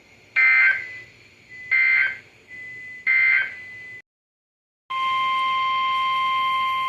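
Three short bursts of screechy Emergency Alert System SAME digital data, the end-of-message signal closing the previous warning. After a brief dead gap, the steady 1050 Hz NOAA Weather Radio warning alarm tone sounds, announcing the next alert.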